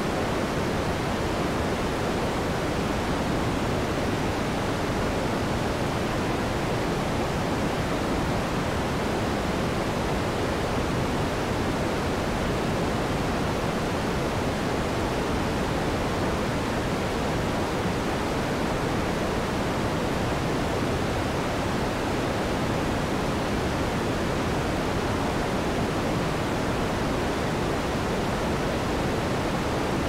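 Moog Sub 37 analog synthesizer's noise generator putting out a steady, unchanging hiss, fullest in the lower and middle range and softer in the highest treble.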